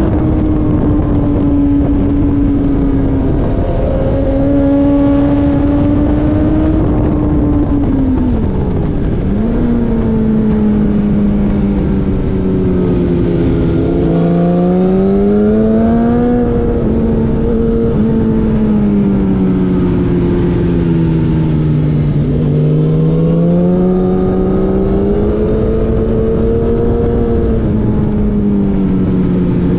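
Car engine heard from onboard while lapping a race circuit, its pitch rising and falling as it accelerates and eases off, with a sharp drop and climb back about eight seconds in, over heavy wind and road rumble.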